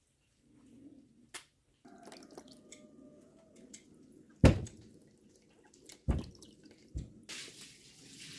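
Water from a tank's tap splashing into a plastic basin as a tomato is washed by hand. There are a few sharp splashes and knocks, the loudest about halfway, and a hissing rush of water near the end.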